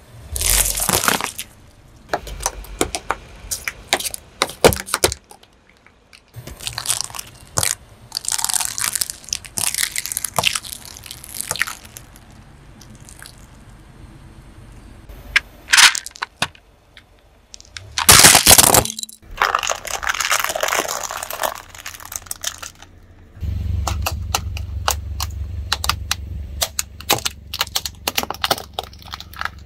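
A car tyre rolling slowly over small objects one after another, crushing them close to a ground-level microphone: foil-wrapped items crackling, raw eggs cracking and squashing, and rubbery toys being flattened. The sound is a string of sharp cracks and crunches with short pauses between them. There is a very loud crunch about two-thirds of the way through, and a steady low rumble under the crushing for the last few seconds.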